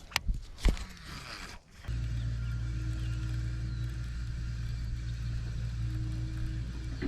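A few knocks and a brief hiss, then about two seconds in a steady low mechanical hum starts and runs on evenly.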